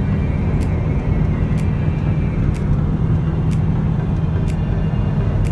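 Steady low rumble of road and engine noise inside a car cruising on a highway, with a faint tick about once a second.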